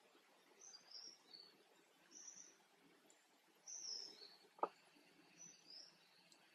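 Faint bird calls: short high chirps, often in pairs stepping down in pitch, repeating every second or so. A single sharp click comes about four and a half seconds in.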